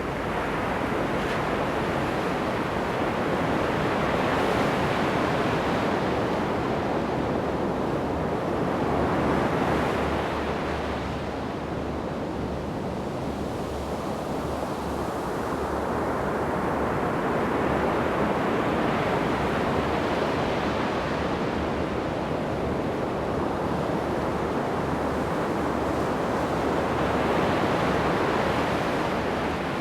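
Ocean surf breaking on a sandy beach: a continuous wash of waves that swells and ebbs, with a wave cresting about every nine or ten seconds.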